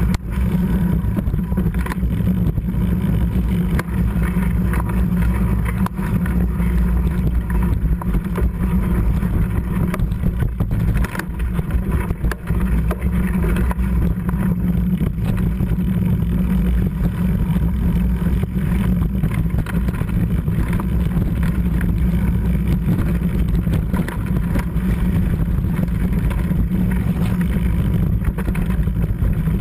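Mountain bike riding down a rough trail: a steady loud rumble of wind and ride noise on the body-worn camera's microphone, full of rapid rattles and knocks from the bike over the ground.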